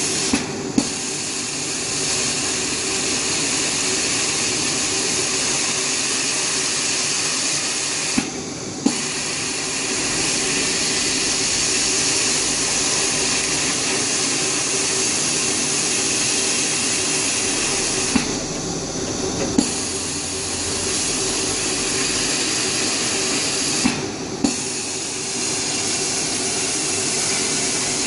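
Laser cutter cutting plywood die board: a steady hiss of air from the cutting head with a steady hum under it. Four times the hiss briefly drops out, with a sharp click as it stops and another as it comes back, as the cutting pauses between lines.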